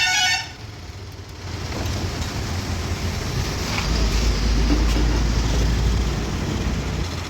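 Heavy diesel engine of earth-moving machinery running, its low rumble getting louder from about four seconds in and easing off near the end.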